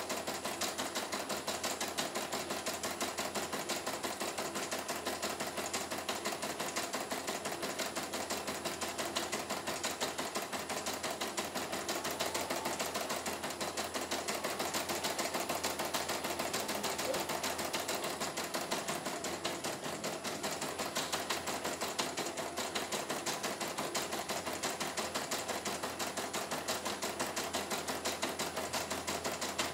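CNY E900 computerised embroidery machine stitching a design, with a rapid, even clatter of the needle that runs on without a break. The machine is working again after being repaired for a total power failure.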